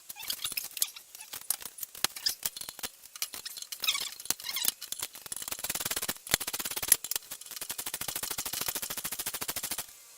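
Irregular metallic clicks and knocks from tools on the wheel, then from about halfway a fast, even run of ratchet clicks that stops abruptly near the end. This is a socket ratchet turning bolts out of the motorcycle wheel's brake disc.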